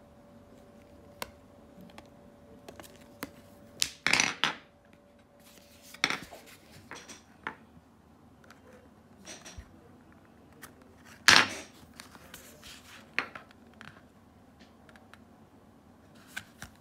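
Cardboard packaging of a massage tool being handled and turned over: scattered clicks, taps and short scraping rustles, the loudest about four and eleven seconds in. A faint steady hum stops about six seconds in.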